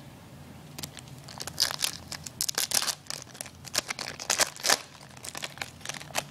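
Foil wrapper of a 2010 Topps Chrome baseball card pack being torn open and crinkled by hand: a run of sharp crackles starting about a second in.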